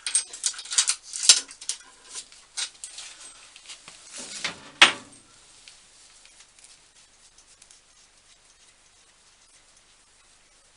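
Metal workshop accessories being handled and set in place: a quick run of light clicks and knocks, with one louder knock about five seconds in.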